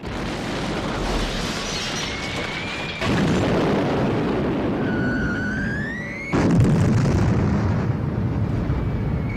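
Battle sound effects: a continuous rumbling din of explosions that gets suddenly louder about three seconds in and again about six seconds in, with a whistling tone rising in pitch just before the second jump.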